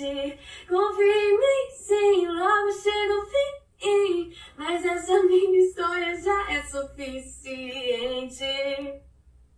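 A woman singing in Portuguese with no accompaniment: a vocal track isolated by a noise reducer, clean of background noise. The singing stops about nine seconds in.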